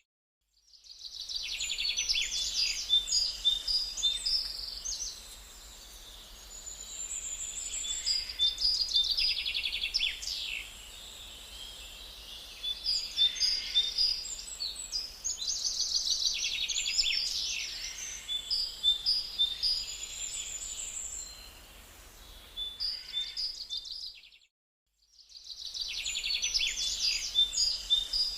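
Songbirds singing: a busy mix of high chirps, trills and short whistles from several birds. The sound cuts out to silence twice, briefly, about half a second in and again near the end.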